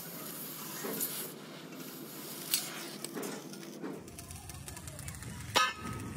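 Gas cutting torch hissing steadily as it cuts through steel box-section tubing, with a couple of metal clanks. About four seconds in this gives way to general workshop-yard noise, with one loud metal knock near the end.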